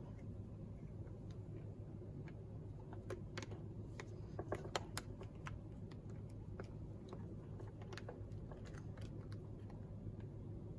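Small plastic clicks and taps as an electric scooter's handlebar display cover is handled and pressed into place, with a cluster of sharper clicks about halfway through.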